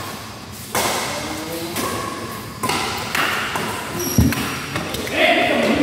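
Badminton rally: rackets strike the shuttlecock with sharp cracks about once a second, each ringing briefly in the hall. A heavier thud comes about four seconds in, as a player plays a jumping overhead shot. A short voice is heard near the end.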